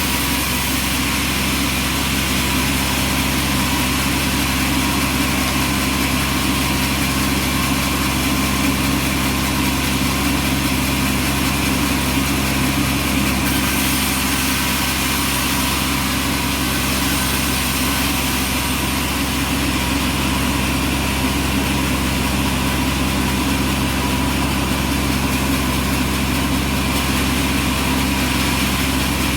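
Bandsaw sawmill's engine running steadily: a constant, unchanging drone.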